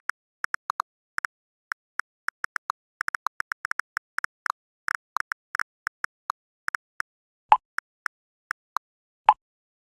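Smartphone on-screen keyboard clicking at an uneven typing pace, several short key clicks a second. Two louder, deeper pops, one a little past halfway and one near the end, fit a chat app's message-sent sound.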